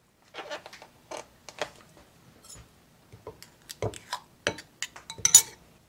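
Metal ice cream scoop forced through hard ice cream in a plastic tub and scraped into a ceramic bowl: a run of irregular creaks, scrapes and clicks, sharpest near the end. The scoop breaks under the strain.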